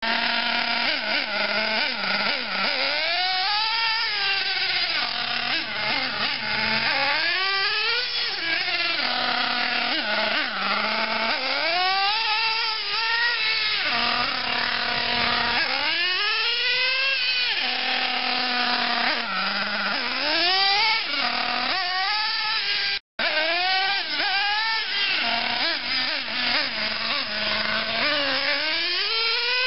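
The LRP Z.28R Spec 1 .28 nitro glow engine of a Team Losi Aftershock RC buggy running hard, freshly broken in. Its whine rises and falls over and over as the throttle is opened and closed on each pass, about every four seconds. A split-second gap cuts it off about two-thirds through.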